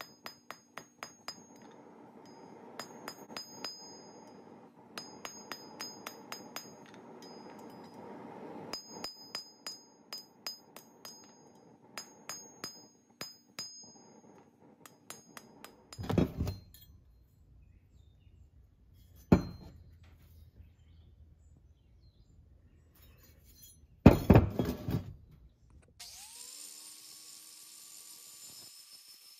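Hammer striking hot steel on an anvil, rapid ringing blows of about four to five a second in runs of a few seconds, while a wrench is forged. About halfway through come a few heavy, loud thumps. Near the end an angle grinder spins up, its pitch rising and then holding, and grinds the steel.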